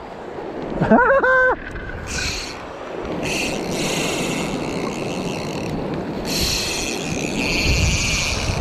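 Fly reel's drag buzzing in three long spurts as a hooked giant trevally pulls line off it, over steady wind noise on the microphone.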